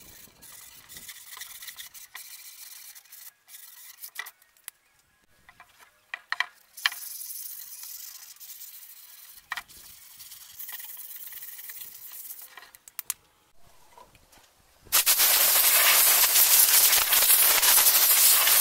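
Sandpaper rubbing over a wooden panel by hand, soft and scratchy with a few sharp clicks. About fifteen seconds in, a compressed-air blow gun starts with a loud, steady hiss, blowing sanding dust off the carving.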